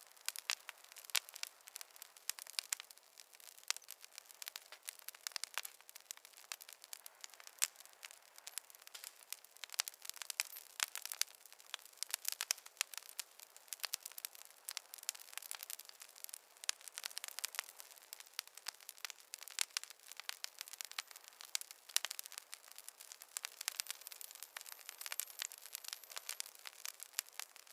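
Wood fire crackling: a dense, irregular run of sharp pops and snaps over a soft hiss, with no low rumble.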